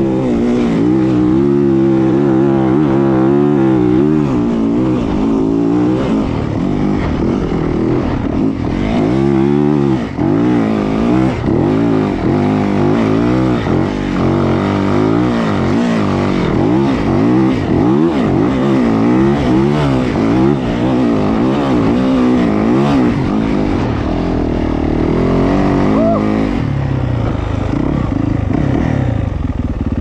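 Yamaha YZ450F dirt bike's single-cylinder four-stroke engine being ridden hard, its revs rising and falling over and over as the throttle is worked through the gears. The revs drop off briefly about ten seconds in.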